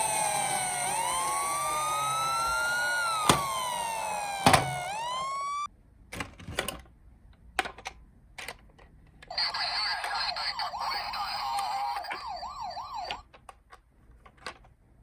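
Toy police car's electronic siren wailing, slowly rising and falling, with two sharp clicks, then cutting off suddenly about five and a half seconds in. After a few scattered clicks, a second electronic siren with a fast warble sounds for about four seconds.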